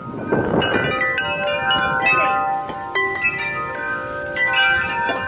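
Wind chimes struck hard and repeatedly by storm gusts, many quick clangs with their notes ringing on; a gust of wind buffets the microphone in the first second.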